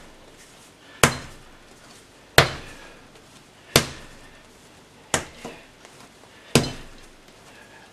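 A ball of bread dough slapped down by hand onto a worktable and folded over, a sharp slap about every second and a half, five times. This is the early hand-kneading stage, before the salt goes in, working the dough until the yeast is mixed in and no lumps are left.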